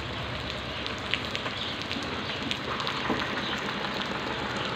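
Steady rain with scattered drop ticks, over a low steady hum.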